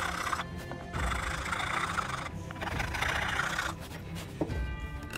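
A flat hand file rasping across the hardwood of a sliding dovetail in long back-and-forth strokes, three of them, as the joint is trimmed to fit. A light knock near the end, over background music.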